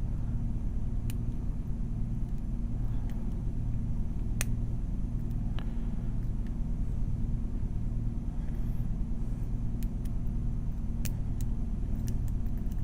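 Steady low background rumble, with a few faint, scattered metallic clicks from a lock pick and tension wrench working the pins of a small cheap padlock.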